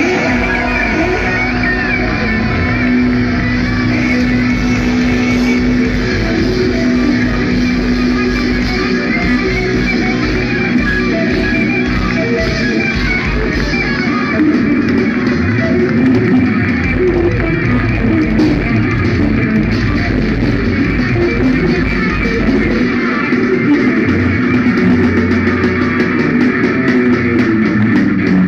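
Progressive metal band playing live and loud: distorted electric guitars and bass over drums, with long held notes.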